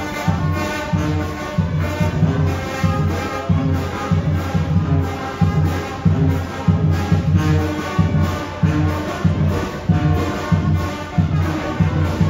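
Brass band music with a steady bass beat, about two beats a second.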